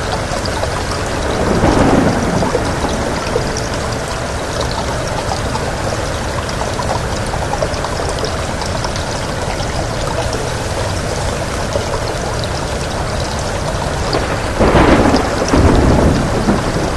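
Steady heavy rain with two rumbles of thunder, a short one about two seconds in and a louder, longer one near the end.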